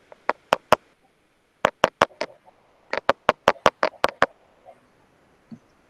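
Repeated sharp knocks on a hard surface, in three quick runs of taps.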